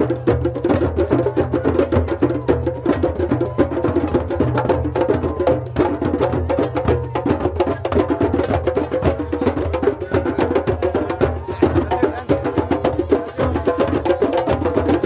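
Background music with fast, busy percussion over a bass line that moves between notes.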